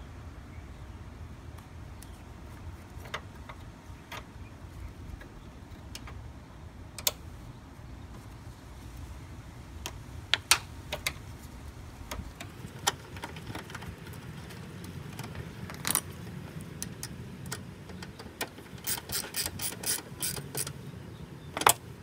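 Ratchet clicking as a bolt on the airbox is worked in, with scattered small metal clicks and taps of tool and parts, then a quick run of about five clicks a second near the end.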